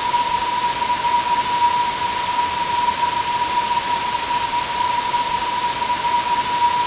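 Waterfall water rushing in a steady, even hiss, with a steady thin high tone running through it.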